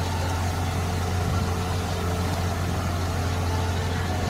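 Diesel engine of an UltraTrex amphibious pontoon excavator running steadily, a deep even hum, while the machine works its arm.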